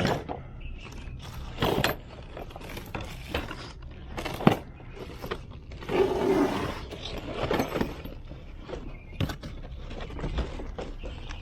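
Unpacking noises as string trimmer parts are handled and lifted out of their box and packaging: irregular rustling, scraping and knocks, with a sharp knock about four and a half seconds in.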